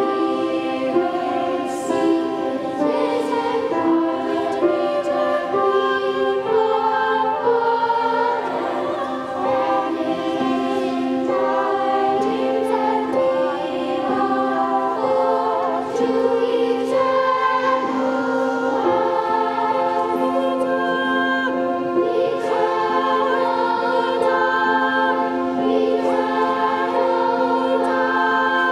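Children's choir singing together, with one low note held steadily underneath the changing melody.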